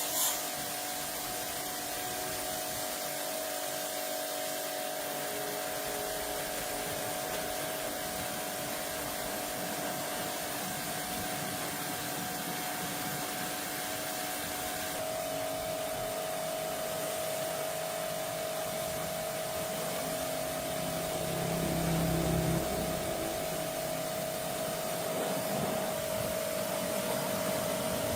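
A small motor running steadily with a constant whine over a hiss. The sound shifts slightly about halfway through, and a deeper rumble comes in briefly about three-quarters of the way through.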